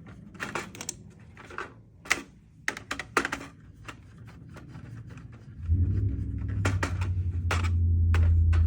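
Irregular small clicks and knocks of a screwdriver and plastic housing parts being worked on. About two-thirds of the way through, a loud steady low hum starts suddenly and keeps going.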